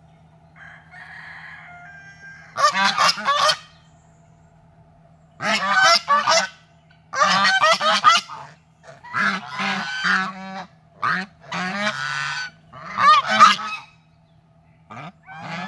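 Domestic geese honking in repeated bouts of loud, rapid honks, about seven bouts with short pauses between them.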